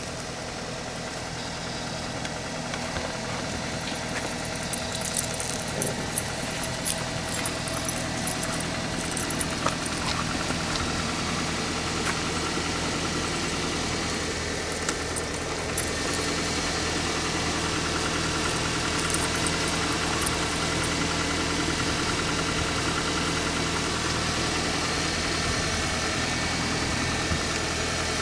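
Steady mechanical hum of an idling motor, with scattered light clicks and rattles.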